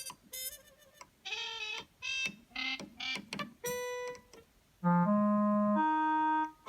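E-MU Vintage Pro sample-playback module playing the built-in audition riffs of its presets through a Bluetooth speaker. First comes a string of short synthesized notes; about five seconds in, a loud sustained chord takes over and shifts once.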